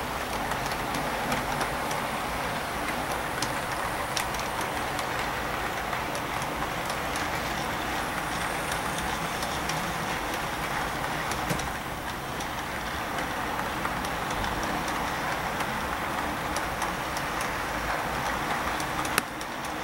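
HO scale model freight train rolling past on its track: a steady rolling rush of small wheels on the rails, with scattered light clicks and one sharper click near the end.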